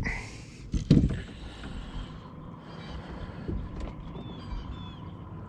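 Boat motor running steadily at trolling speed, with a faint steady whine. A sharp knock at the start and another about a second in, along with a short grunt.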